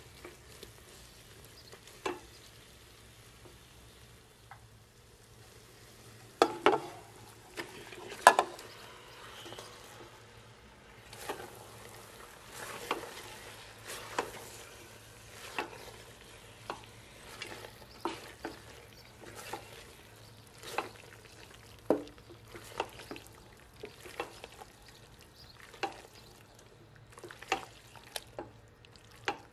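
Silicone spatula stirring and scraping a frying onion-and-tomato paste in a stainless steel pot, over a faint sizzle. A few loud thuds about six to eight seconds in as bone-in goat meat goes into the pot. After that the spatula knocks and scrapes about once a second while the meat is turned in the sauce.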